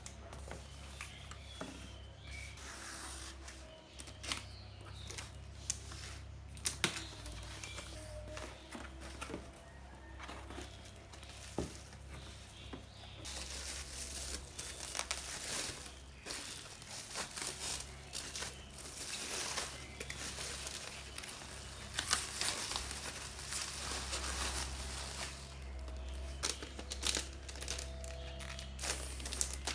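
Plastic and paper packaging crinkling and tearing in irregular rustles and crackles, as when a new vinyl record is being unwrapped, with a steady low hum underneath.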